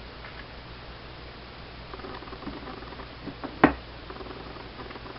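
Plastic shell of an Xbox 360 wireless controller being pulled apart by hand: faint scraping and small clicks, with one sharp plastic click a little over three and a half seconds in as a clip lets go.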